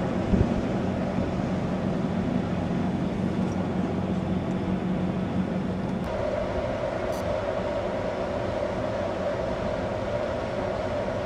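Flåm Railway train running: a steady rail rumble with a low hum that gives way about six seconds in to a higher hum, and a single knock just after the start.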